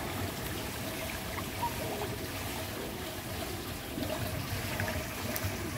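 Swimming-pool water ambience: a steady, even rushing noise with an uneven low rumble underneath and a faint steady hum, with no distinct splashes.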